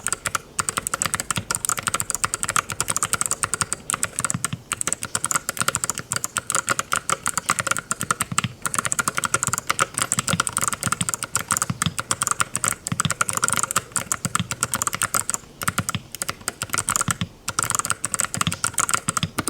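Fast, continuous typing on a mechanical keyboard fitted with ceramic keycaps: a dense run of sharp keystroke clacks with a few brief pauses.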